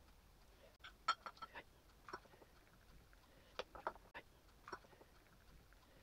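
A few light clinks and clicks of kitchenware being handled: a metal spoon against a ceramic mug and a plastic lid being set on it. They come in small scattered clusters, the loudest about a second in.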